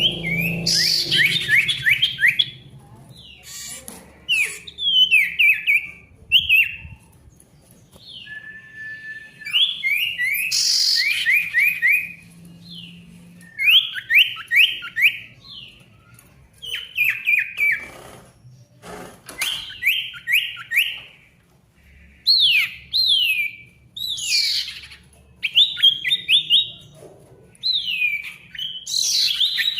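Caged common iora (sirtu, cipoh) singing vigorously: repeated phrases of quick downward-sliding whistled notes, a burst every couple of seconds.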